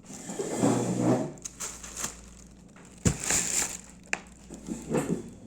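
Crinkling, rustling handling noise in three short bouts, with a few small knocks.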